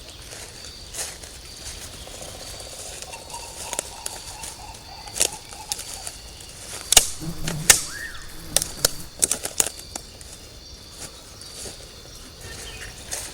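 Layered jungle sound effects: a steady high buzz runs throughout, with rustling in the first half and a burst of sharp snaps and cracks in the middle seconds.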